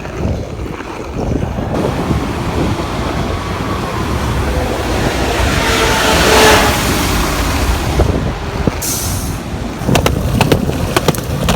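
Street traffic: a passing vehicle swells and fades, loudest about six seconds in. A brief hiss comes about nine seconds in, and a few knocks near the end.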